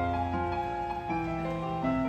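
Live music: a piano accompanying a choir song, playing a slow passage of held notes and chords that change every half second or so.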